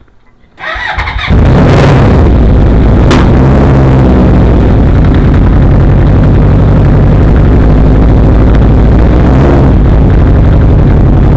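Honda CB750 inline-four motorcycle engine starting about a second in, then running steadily, loud and distorted on the microphone.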